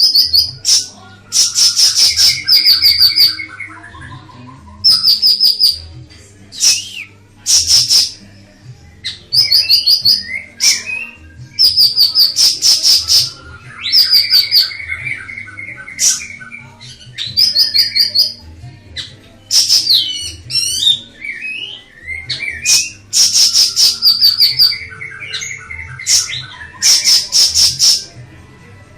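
Siri-siri (golden-bellied gerygone) singing: loud, repeated bursts of rapid high chirping trills, each a second or two long with short pauses between, over a faint low hum.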